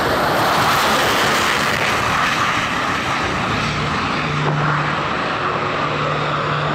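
HAL Tejas fighter's single turbofan jet engine at takeoff power: a steady, loud rushing jet roar as the aircraft lifts off and climbs away.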